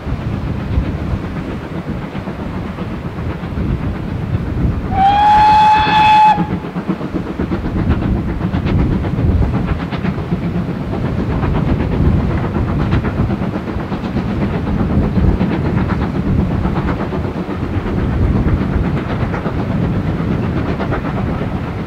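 GWR 2-8-0T tank locomotive No. 4277 'Hercules' hauling a passenger train, with the steady rumble of its steam exhaust and the train running. A single steam whistle blast of a little over a second comes about five seconds in, starting with a slight rise in pitch.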